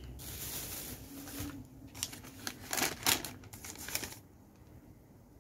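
Plastic bag wrapping crinkling and rustling as a package is handled and opened, with a run of sharp crackles about two to four seconds in.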